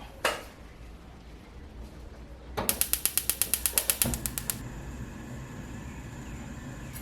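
A knock, then a gas stove's igniter clicking rapidly, about seven clicks a second for some two seconds, until the burner lights and settles into a steady hiss. The repaired burner burns without the popping that gas leaking past its spreader plate caused.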